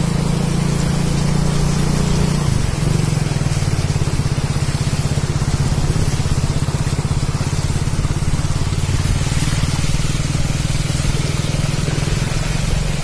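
Motorcycle engine running steadily while the bike rides through shallow floodwater; its note drops about two and a half seconds in and then settles.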